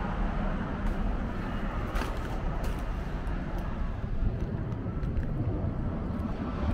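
Steady rumble of traffic on a highway close by, semi trucks among it, with a few faint clicks over it.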